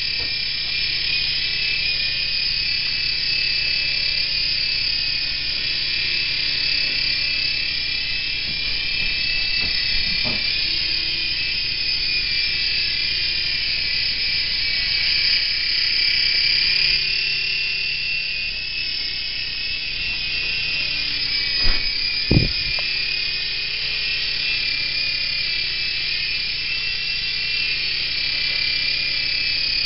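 Air Hogs Sharpshooter toy RC helicopter in flight: its small electric motor and spinning rotor make a steady high-pitched whine that wavers slowly up and down in pitch. Two sharp knocks come close together a little over two-thirds of the way through.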